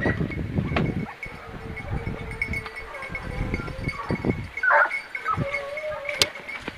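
Hunting hounds baying in drawn-out, wavering cries, with a faint repeating high ringing under them, mixed with rustling and knocks as the hunter moves through the brush.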